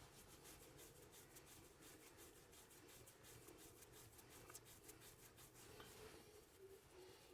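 Near silence: faint rubbing of the masseur's hands, with a few soft ticks a little after the middle.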